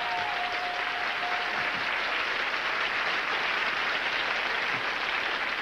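Studio audience applauding steadily for a correctly guessed password, with a thin steady tone under the clapping for the first two seconds or so.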